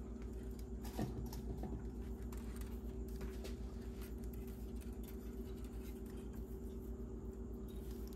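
Soldering iron and solder wire being handled: scattered small clicks and scrapes, with a short sliding scrape that falls in pitch about a second in, over a steady low electrical hum.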